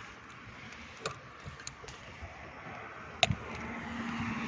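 Light clicks and scrapes of a flathead screwdriver being worked against the plastic locking tab of a door handle's electrical connector, with one sharp click a little past three seconds in. A faint steady hum comes in near the end.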